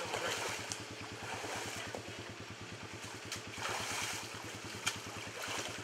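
Creek water sloshing and splashing around legs wading through it, with a bigger splash about four seconds in as a man climbs out onto the bank. A steady low, evenly pulsing drone runs underneath.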